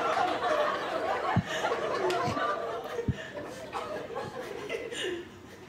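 Comedy club audience laughing, with a man chuckling close to the microphone; the laughter dies down toward the end. Three dull low thumps come in the first half.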